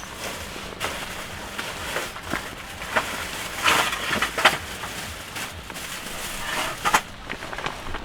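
Steady rain hiss with irregular cracks and crunches over it, the loudest cluster about four seconds in and another near seven seconds.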